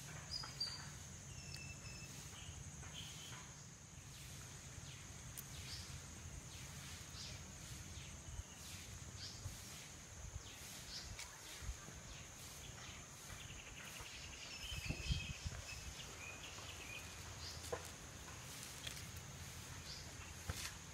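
Quiet rural outdoor ambience: a steady high insect drone with a few short bird chirps, and faint scattered clicks and rustles of thin leaf-rib sticks and small fruits being handled. A brief low bump about fifteen seconds in.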